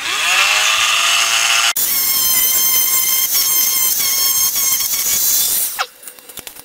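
Handheld rotary tool spinning up, then running with a steady high whine for about four seconds while its small bit cuts through the copper tracks of a stripboard, and winding down near the end.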